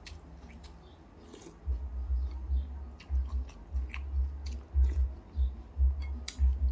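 Close-miked chewing of a mouthful of noodles. A rhythmic series of low, pulsing thumps begins about two seconds in, with small wet clicks scattered throughout.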